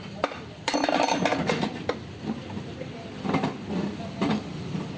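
Metal tools and parts clinking and clattering, with a burst of rattling about a second in and a couple of shorter clinks later.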